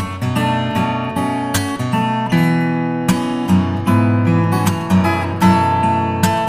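Background music: strummed acoustic guitar, with chords struck roughly every half second to second.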